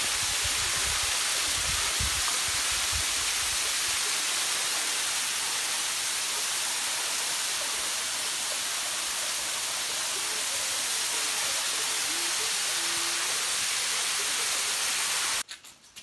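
Waterfall pouring down a rock face into a pool: a steady loud hiss of falling water, with low rumbling bumps in the first few seconds. It cuts off abruptly near the end, leaving a few faint clicks.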